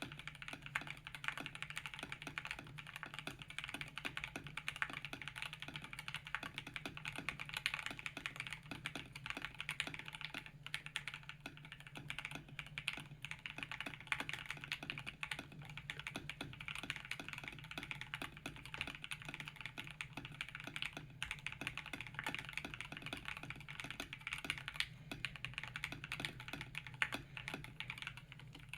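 Akko 5075S mechanical keyboard with factory-lubed Gateron Pro Milky Yellow linear switches and PBT keycaps being typed on, a fast, unbroken stream of keystrokes with no pauses.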